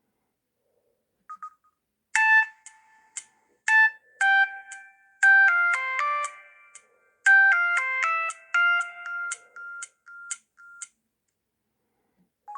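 Samsung SGH-F480 mobile phone playing one of its built-in polyphonic ringtones through its loudspeaker: a melody of short, quickly fading notes that starts about two seconds in and stops about a second before a short blip at the end.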